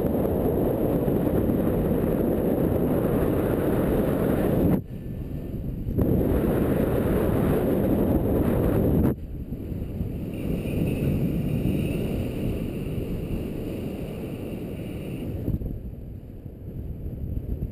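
Airflow in flight under a paraglider buffeting the camera's microphone: a low, rushing wind noise. It falls away for about a second some five seconds in, comes back, then drops to a softer level about nine seconds in.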